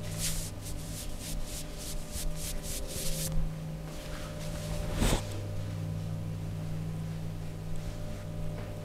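Massage hands briskly rubbing over a client's back, about four quick strokes a second, stopping after about three seconds. One sharp click comes about five seconds in, over a steady low hum.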